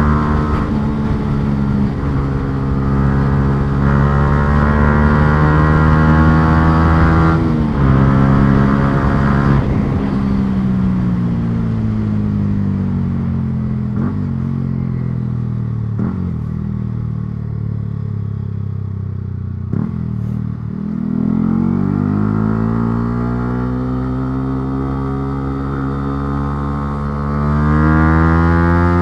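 Yamaha R125's single-cylinder four-stroke engine under way. It holds steady revs with a brief break about seven seconds in, then the revs fall away for about ten seconds and climb steadily again near the end.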